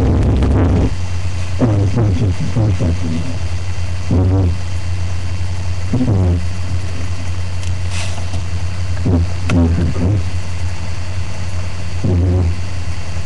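Background electronic music with a steady, heavy low bass drone and short pitched phrases every couple of seconds.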